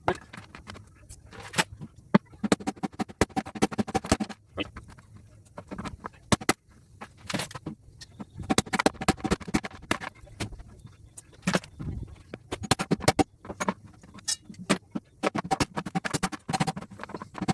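Small pieces of scrap metal from broken electrical connectors clinking and clattering in irregular quick clusters as they are handled and sorted, some knocks with a short metallic ring.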